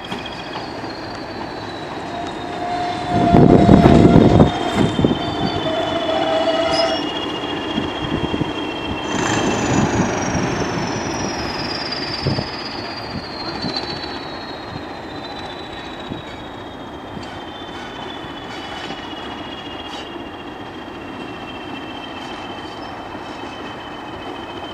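English Electric Class 20 diesel locomotive running, its engine's turbocharger whistling high and slowly falling in pitch. About nine seconds in the whistle jumps higher as the engine is opened up, then winds down over the next fifteen seconds. A brief loud rumble comes about three seconds in.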